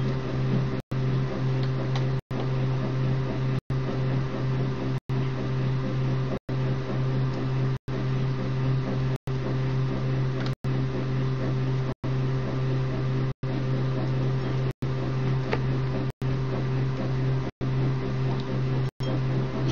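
A steady low electrical hum, cut by brief complete dropouts about every second and a half, with a few faint clicks over it.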